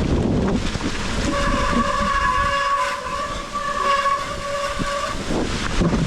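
A mountain bike's wet disc brakes squealing in one steady high note for about four seconds, breaking off briefly partway through, over the rumble of tyres and rain on a muddy trail.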